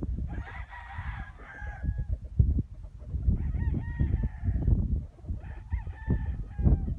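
Birds calling: several groups of short pitched calls that glide in pitch, over a constant low rumble with thumps.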